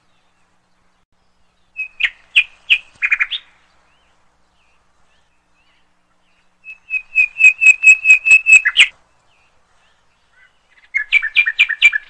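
A songbird chirping in three bursts of quick, repeated high notes, with pauses between them. The middle burst is the longest and loudest, a fast run of about a dozen notes.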